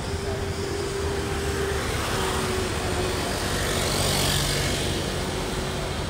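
Motor-vehicle noise that swells to its loudest about four seconds in and then eases off, over a steady hum.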